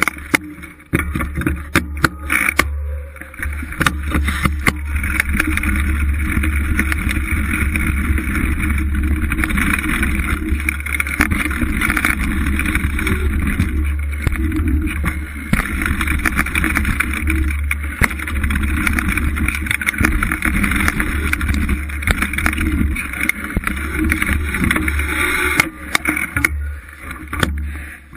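Riding noise of a mountain bike on a dirt jump line: a steady rush of air and rolling noise with frequent rattles and knocks over the bumps, easing off near the end as the bike comes to a stop.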